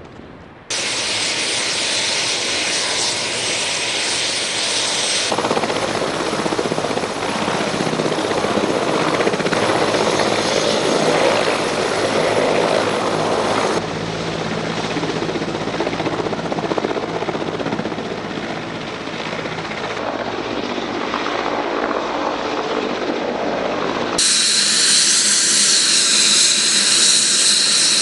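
Eurocopter AS365 Dauphin helicopter's turbines and rotor running steadily, in several takes that cut in abruptly. In the last few seconds a close take brings in a loud, high turbine whine.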